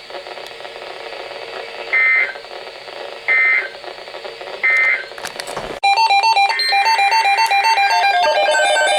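Three short bursts of Emergency Alert System end-of-message data tones, the warbling digital code that closes an alert, about a second apart over a faint radio hiss. About six seconds in, loud chiming bell-like music begins.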